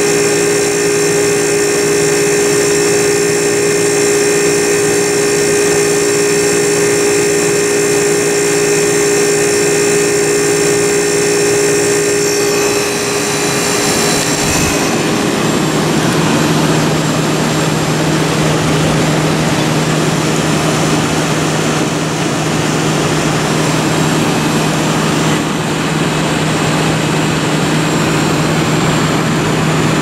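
Vintage Westinghouse 5,000 BTU window air conditioner running, its reciprocating compressor and fan making a steady hum with a whine. About halfway through, the whine fades and a rush of blowing air with a lower steady hum takes over.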